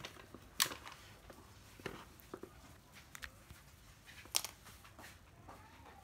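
Scattered light clicks and knocks of cordless power tools being handled, the sharpest about half a second in, with others near two seconds and four and a half seconds in.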